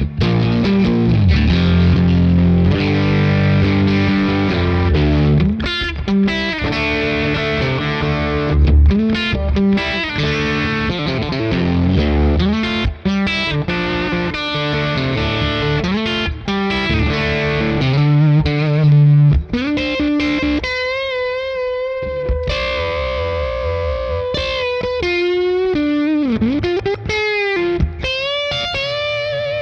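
Electric guitar played through a compressor and clean boost into a Fender '65 Deluxe Reverb amp, slightly driven. Strummed chords and riffs give way, about two-thirds in, to sustained single notes with wide vibrato and a bend.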